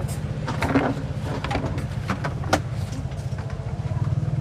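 A steady, low engine hum with a pulsing drone, with a few sharp clinks and knocks in the first half.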